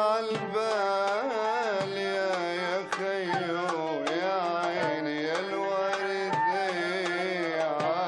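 Arabic takht ensemble music: a voice singing a wavering, ornamented melody over qanun, oud and ney, with regular strokes on a darbuka hand drum.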